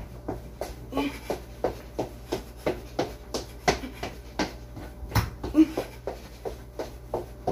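Footfalls during a home workout exercise: an even rhythm of soft thuds, about three a second, over a steady low hum.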